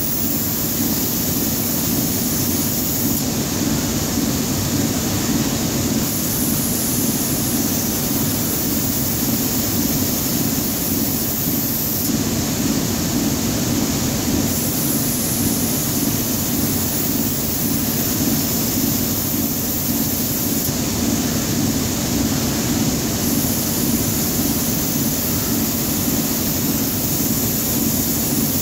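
Steady, unbroken machinery drone with a low hum from a running belt conveyor.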